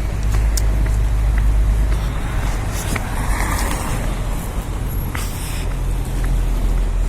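Heavy wind rumble on the microphone, with city traffic passing; one vehicle goes by about three seconds in.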